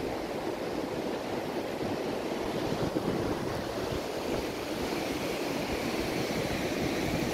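Steady rushing wind and surf noise, with wind rumbling on the microphone.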